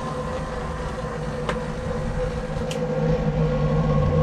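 Steady mechanical hum with a couple of faint clicks, growing slightly louder toward the end.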